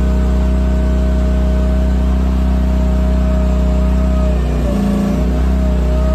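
Petrol engine of a cheap Chinese 1-ton mini excavator running steadily, with a steady higher whine over it. Its pitch dips briefly about four and a half seconds in, then recovers.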